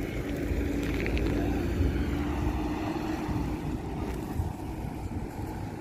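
Road traffic: a steady motor-vehicle engine hum that fades away about halfway through, over a low outdoor rumble.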